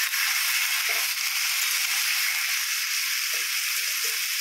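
Freshly added chopped tomatoes sizzling in hot oil in a steel kadhai, a steady frying hiss, with a few faint scrapes of the steel spatula against the pan.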